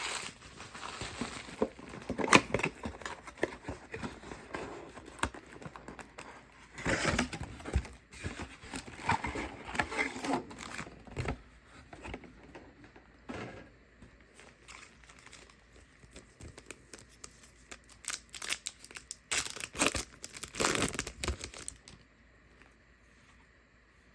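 Plastic packaging of a trading-card box crinkling and tearing as it is opened by hand. The crinkling comes in several bursts, louder about two, seven to eleven, and nineteen to twenty-two seconds in, with softer handling between, and stops shortly before the end.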